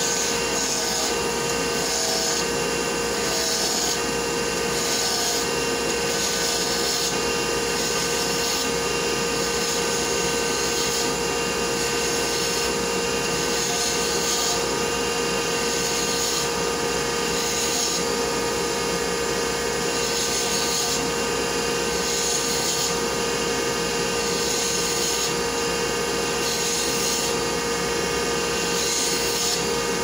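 Wood lathe spinning at about 3,000 RPM with a dust collector running, as a roughing gouge cuts a square Bubinga pen blank round. A steady machine hum underlies a hiss of cutting that swells and fades every second or two as the gouge moves along the blank.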